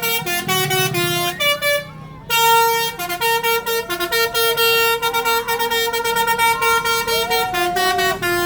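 Basuri telolet musical bus horn playing a fast tune of short, chopped notes, each a chord of several tones, changing pitch several times a second, with a brief break about two seconds in.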